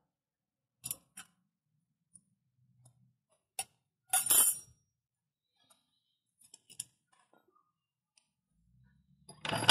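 A few light knocks and clicks of a wooden board being set down and shifted on a steel floor jack's lifting saddle. The loudest is a short clatter about four seconds in. A louder broad noise starts just before the end.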